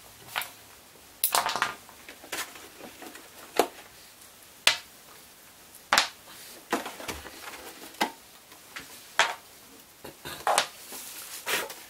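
Irregular clicks and knocks of a hard plastic Stormtrooper helmet and its small parts being handled and set down on a workbench, about one sharp knock a second.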